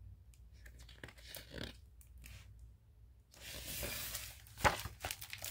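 Page of a hardcover picture book being turned by hand: paper rustling that starts about three seconds in, with a sharp flap of the page shortly before the end.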